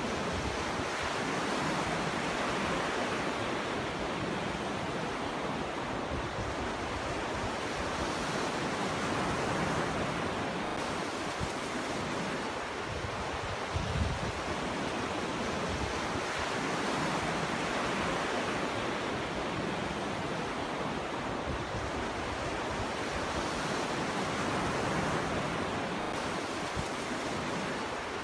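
Ocean surf breaking on a beach: a continuous wash of waves that swells and eases every few seconds, with a brief low thump about halfway through.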